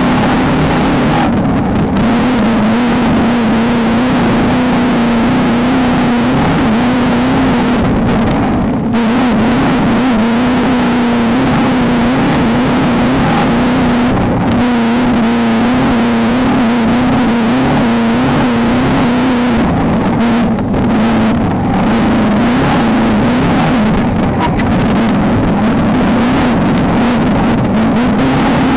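Off-road race car's engine, a VW Beetle-based desert racer, running hard at fairly steady high revs, its pitch wavering slightly as the throttle changes, over a constant haze of road and wind noise.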